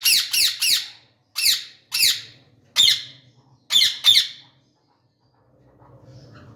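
Ringneck parakeet giving loud, harsh squawking calls, each falling in pitch: a quick run of three, then single calls about every second, and a last pair about four seconds in, after which the calls stop.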